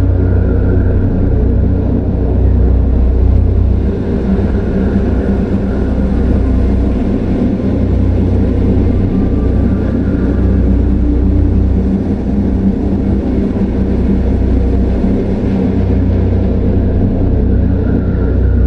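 Horror forest ambience sound design: a loud, steady deep rumble and dense low drone, with a fainter higher tone that swells and fades every few seconds.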